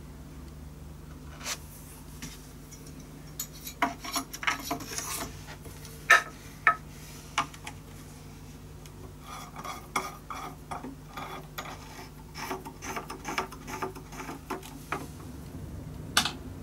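Small metal cleat clamps being handled and screwed down onto a cello top: scattered light metallic clicks and clinks, a few sharper, in two busy stretches.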